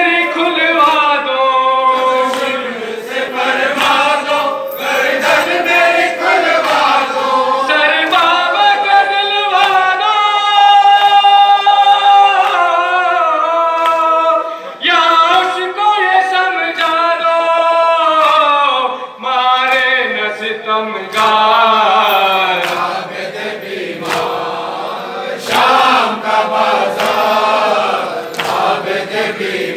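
Group of men singing a noha, a Shia mourning lament, together and unaccompanied, with long held notes about ten seconds in.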